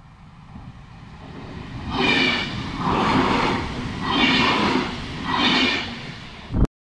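Trenord double-deck electric commuter train passing at close range. The rush of the train builds, then swells and fades about once a second as its cars go by. It ends in a sharp knock and an abrupt cut-off.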